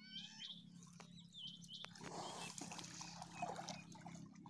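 Faint water sloshing around water buffaloes wading and swimming in floodwater, with small birds chirping in the first couple of seconds.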